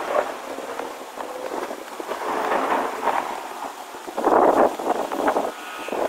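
Thunderstorm: steady rain with rumbling thunder, swelling to its loudest for a moment about four seconds in.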